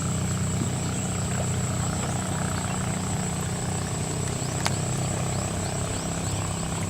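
A motor running steadily with a low, even hum. A thin, steady high-pitched insect trill sits over it. There is one sharp click a little past the middle.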